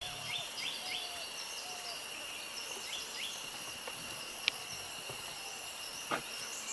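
Forest ambience: a steady high-pitched insect drone, with short repeated falling bird chirps and a few lower call notes, mostly in the first three seconds, and a couple of faint clicks near the end.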